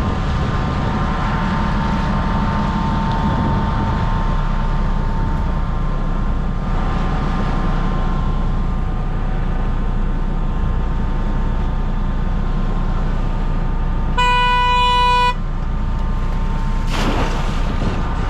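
Fishing boat's engine running steadily with water and hull noise. About fourteen seconds in, a loud horn-like tone sounds for about a second, starting and stopping abruptly.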